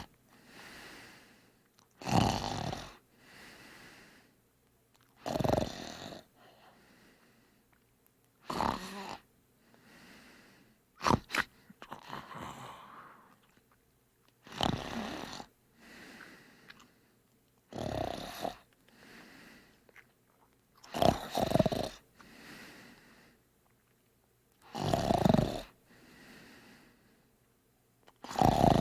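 Snoring: a strong snore on each breath in, about every three to four seconds, each followed by a softer breath out.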